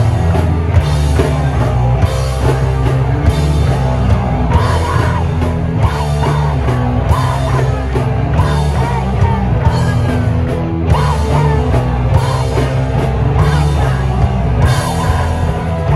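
A live rock band playing loud and steadily: drums, guitars and bass, with sung and shouted vocals.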